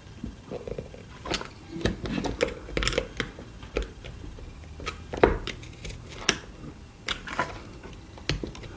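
Small irregular clicks and taps of a plastic model locomotive and its small parts being handled by hand while a DCC chip is fitted, with a sharper click about five seconds in.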